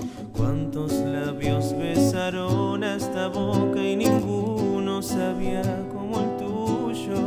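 A man singing while playing an acoustic guitar, the strings strummed and plucked under his voice.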